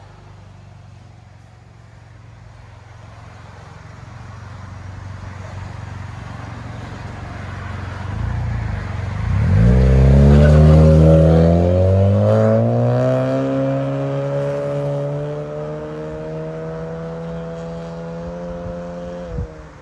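2017 Honda Civic's 2.0-litre four-cylinder exhaust, with the middle resonator removed and a DTM dual-tip muffler, running low at first. About nine seconds in it pulls away, and the exhaust note climbs steadily in pitch as the car accelerates. It is loudest just after it sets off and fades as it moves away, then its pitch drops suddenly near the end.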